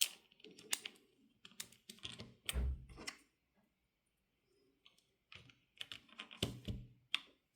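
Kailh Choc low-profile switches with keycaps on a ZSA Voyager keyboard being pressed: quick clusters of key clacks, a pause of about two seconds midway, then another run of clacks.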